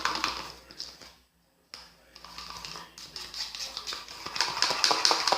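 Thick homemade slime being mixed in a bowl: rapid wet, sticky clicking and squelching, with a brief break to silence about a second in, then denser clicking.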